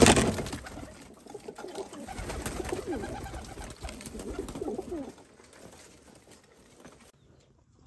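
Domestic pigeons cooing at a grain feeder: a loud burst of wing flapping at the start, then a run of repeated cooing calls that falls away near the end.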